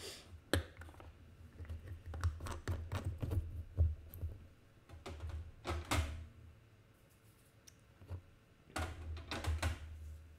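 Irregular clicks, taps and soft knocks of drawing pens and paper being handled on a desk, with low bumps from the desk. The clusters are dense for the first six seconds, go quieter for a couple of seconds, and return near the end.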